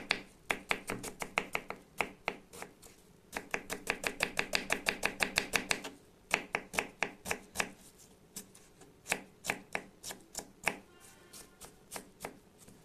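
Kitchen knife chopping an onion on a wooden cutting board. The blade strikes the board in a fast even run of about six chops a second near the middle, with slower, scattered single cuts before and after.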